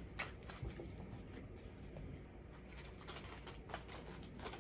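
Faint scattered clicks and light handling noise from small plastic action-figure parts and cardboard cards being sorted by hand.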